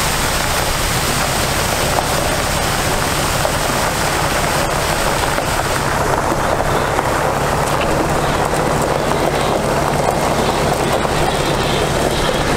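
Steady rush of water pouring from a water truck's rear spray bar onto gravel, over the low run of the truck's International DT466 inline-six diesel engine. About halfway through the rush loses some of its hiss as the truck pulls away.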